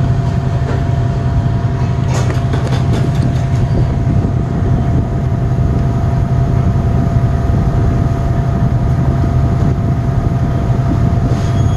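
Failing refrigeration compressor running with a loud, steady hum. This compressor intermittently sticks and trips its thermal overload, and is judged bad.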